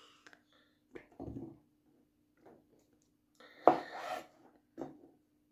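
Kitchen knife slicing a cucumber, the blade knocking sharply on the chopping board a few times at uneven intervals, with brief scraping between cuts. A faint steady hum runs underneath.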